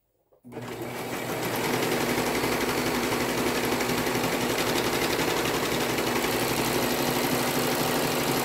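Brother 1034DX serger (overlocker) stitching a seam down two pinned fabric panels, starting about half a second in, getting louder over the first second or so and then running steadily at speed.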